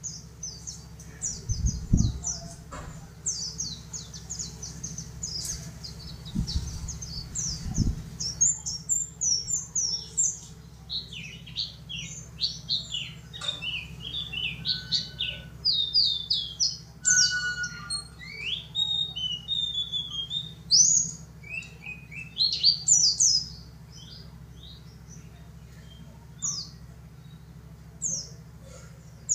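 A yellow-breasted white-eye (pleci dakun) singing: rapid strings of high, thin chirps and twitters, busiest in the middle and thinning out near the end. A few low thumps come in the first eight seconds.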